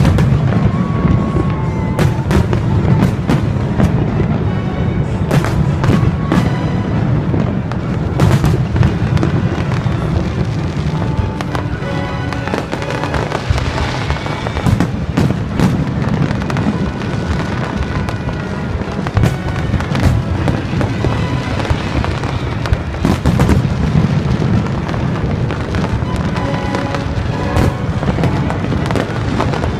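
Fireworks display going off continuously: a dense run of sharp bangs and crackles over a constant low rumble of explosions, with music playing alongside.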